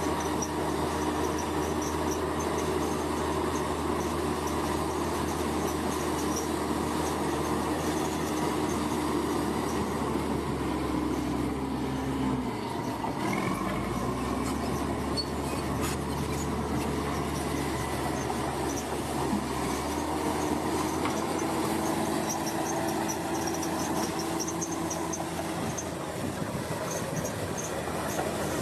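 Heavy diesel earthmoving machinery, most likely a bulldozer, running steadily under load, with a high metallic squeal from tracks or running gear. The engine note drops about halfway through and then picks up again.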